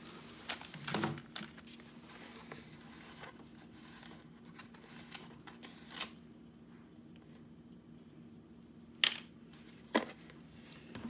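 Quiet handling of a plastic gallon jug of school glue being opened over a plastic mixing bowl, with light rustles and clicks and a faint steady hum, then two sharp knocks about nine and ten seconds in.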